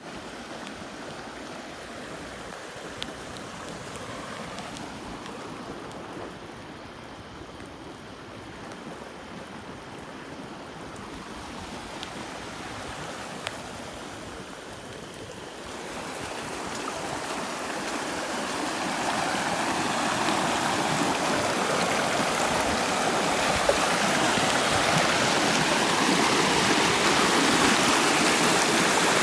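Muddy floodwater rushing past in a field channel: a steady noise that grows steadily louder over the second half.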